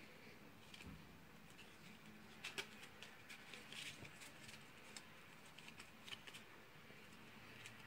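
Faint handling of a deck of playing cards: soft rustles and sharp little card snaps and clicks as the cards are shuffled, clustered a couple of seconds in and again around six seconds in, over faint room tone.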